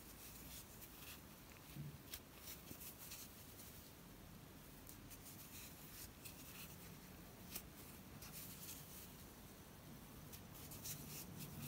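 Faint scratching and rustling of a metal crochet hook drawing yarn through stitches, with scattered light ticks.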